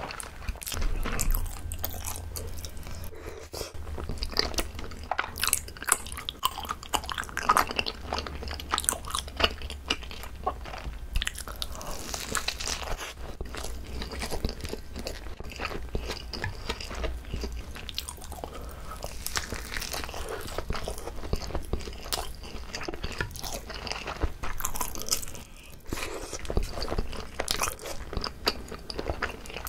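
Close-miked chewing and biting of a whole gimbap roll, rice wrapped in seaweed: a dense, continuous run of small crackles and mouth clicks.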